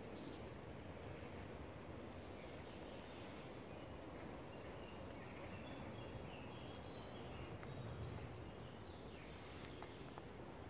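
Faint outdoor background noise with a low, steady rumble, and faint, short, high-pitched bird chirps scattered through it.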